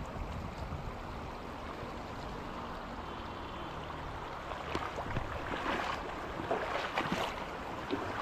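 River water running over rocky shallows in a steady rush, with choppier, louder splashes from about halfway through.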